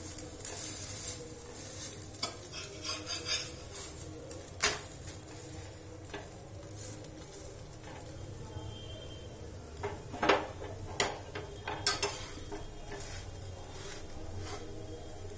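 Stuffed paratha frying in oil on a steel tawa over a low gas flame, giving a faint steady sizzle. A metal spatula taps and scrapes on the tawa several times, with one sharp click about four and a half seconds in and more taps in the second half.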